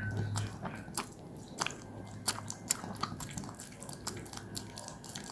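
Senior dog chewing strawberries, with wet, irregular smacking and crunching clicks, a few a second.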